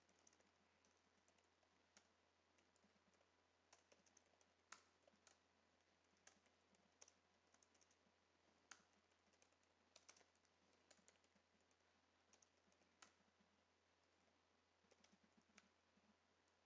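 Faint computer keyboard typing: scattered, irregular key clicks with short pauses between runs.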